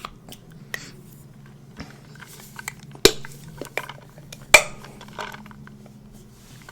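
Utensils clinking against dishes in a series of light, scattered clicks, with two sharper clinks about three and four and a half seconds in.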